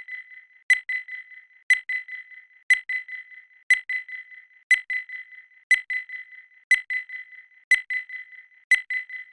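Electronic timer beeping once a second, a short high beep each time followed by fainter quick repeats, about ten beeps in all.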